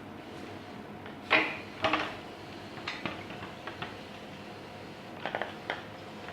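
Metal tools and parts clanking and clicking as they are handled: a sharp clank about a second in, two more just before two seconds, lighter ticks after that, and a quick run of four clicks near the end.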